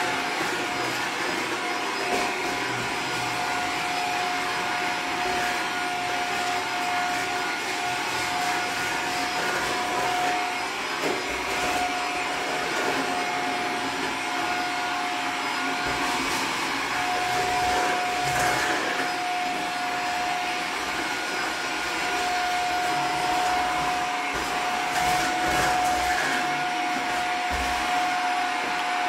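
Vacuum cleaner running steadily, its motor's steady whine dropping out briefly a few times.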